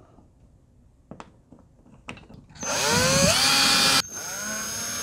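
Faint clicks, then about two and a half seconds in a Ryobi cordless drill/driver starts up with a rising whine. It is driving a screw into a wall stud. The sound drops briefly about four seconds in and then runs on steadily.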